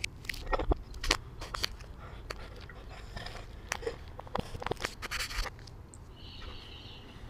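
Footsteps and camera-handling scrapes and knocks from someone walking with a handheld camera, an irregular run of clicks that stops about five and a half seconds in. Near the end, a brief high bird chirp.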